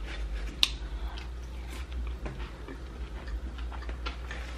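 Close-miked chewing of a sushi piece coated in crunchy red crumbs: a sharp crunch a little over half a second in, then irregular small crunches and mouth sounds.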